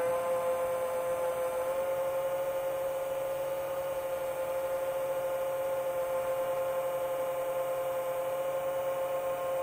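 Chimera 7 long-range FPV quadcopter's motors and propellers humming steadily in cruise: one steady pitched tone with overtones, creeping slightly higher about two seconds in.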